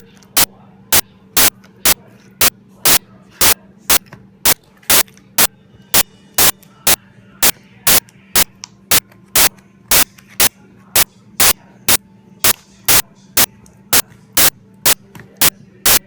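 A steady train of loud, sharp clicks, about two a second, evenly spaced, over a faint steady low hum.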